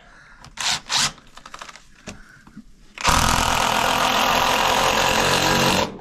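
A few short handling clatters, then, about three seconds in, a cordless impact driver runs steadily for nearly three seconds, driving a long screw into a wooden framing board.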